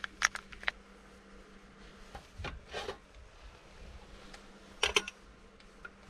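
Crinkling and small sharp crackles of an instant-coffee stick packet being torn open by hand, followed by a few brief handling knocks and rustles. A faint steady hum runs underneath.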